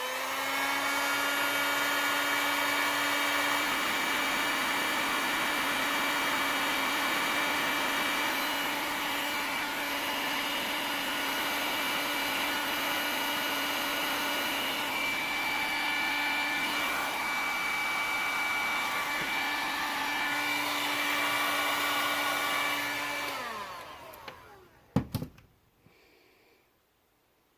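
Electric heat gun spinning up and blowing steadily with a motor hum, heating a solder-and-seal butt connector to shrink its tubing and melt the solder ring. It winds down with a falling pitch a little before the end, followed by a couple of sharp knocks.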